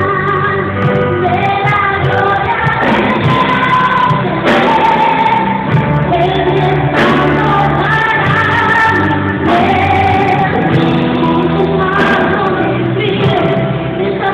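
A live band with keyboards plays a Spanish-language Christian worship song while a group of singers sings the melody together through a PA system. The sound is loud and continuous, with a steady bass and a dull, muffled top.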